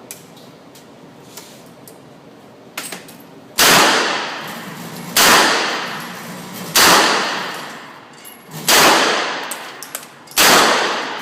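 MP5 submachine gun fired on semi-automatic: five single shots, about a second and a half to two seconds apart, each ringing out with a long echoing decay. The first shot comes a little over a third of the way in.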